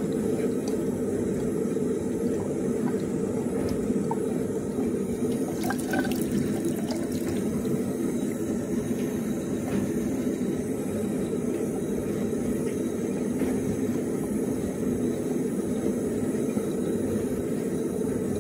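Water running steadily into a bathtub, with a few faint handling ticks about six seconds in.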